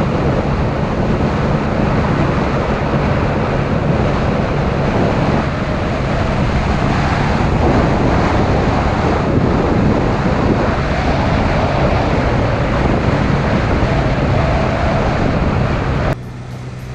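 Heavy wind buffeting on the microphone over the steady drone of a scooter engine cruising at speed. Near the end the sound drops abruptly, leaving a quieter, even engine hum.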